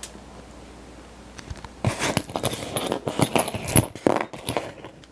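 Metal clicks and rattles from a Guard Security padlock being handled and turned in the hand. They start about two seconds in and run irregularly for about three seconds.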